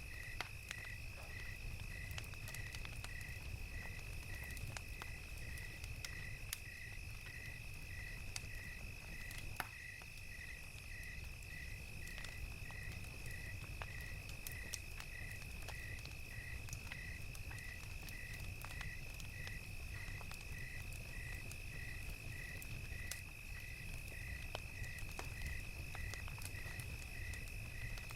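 Crickets chirping at an even pace, about one and a half chirps a second, over a continuous high insect trill. A campfire crackles with scattered sharp pops, over a low steady rumble.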